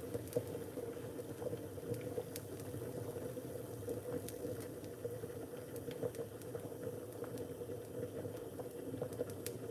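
Chicken soup with dumplings and yam boiling in a lidded aluminium pot: a steady low bubbling with small pops and ticks scattered through it.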